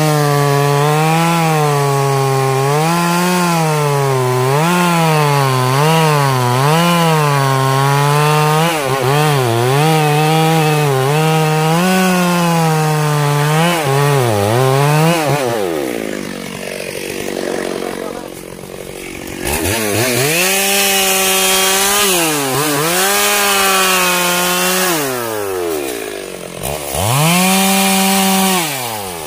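Stihl MS 382 two-stroke chainsaw cutting into the base of a mahogany trunk, its revs wavering under load for about fifteen seconds before dropping to idle. It is then revved up twice more, falling back between the two and again near the end.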